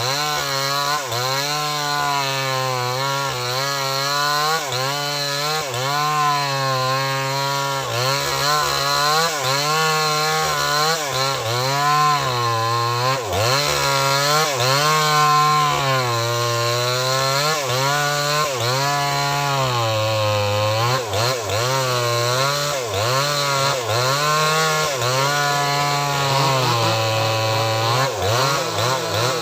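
Small chainsaw cutting into a very large tree trunk, its engine pitch dipping and rising again and again as the chain bites into the wood and frees up.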